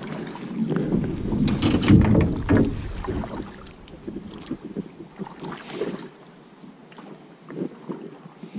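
Water splashing and knocking around a drift boat as a steelhead is landed. The splashing is loudest in the first three seconds, peaking about two seconds in, then eases to softer lapping and scattered knocks, with wind on the microphone.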